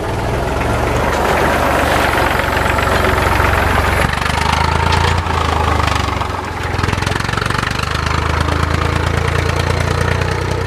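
Tractor engine running steadily with a low rumble, dipping briefly about six seconds in.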